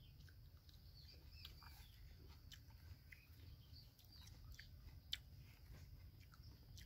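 Near silence with faint chewing of a bite of small fruit tomato and a few soft clicks, the sharpest about five seconds in. Faint bird chirps can be heard in the background.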